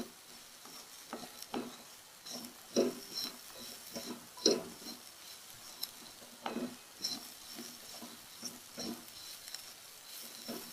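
A spatula stirring crumbled chapati in a frying pan over high heat: irregular scraping and knocking against the pan, with a light sizzle.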